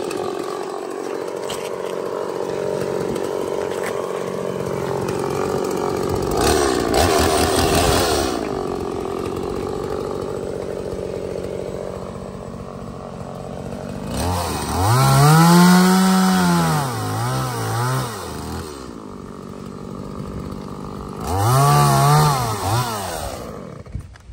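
Two-stroke chainsaw running at a steady idle, revved briefly about a quarter of the way in. Then it is throttled up hard twice, its pitch climbing and falling as it cuts through a felled dead birch log. It stops just at the end.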